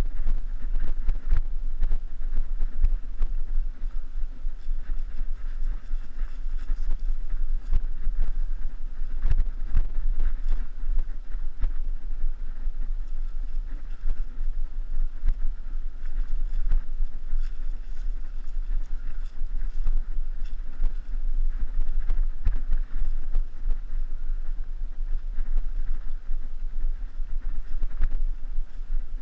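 Mountain bike ridden over a bumpy dirt singletrack, heard from an action camera riding along: steady low wind buffeting on the microphone, with frequent small knocks and rattles as the bike jolts over the trail.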